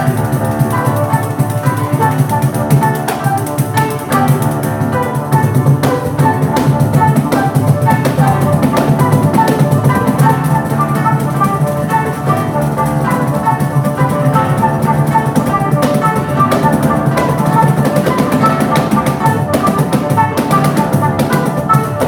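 Live acoustic trio: a flute plays the melody over acoustic guitar, with a pandeiro (a Brazilian jingled frame drum) keeping a quick, steady rhythm.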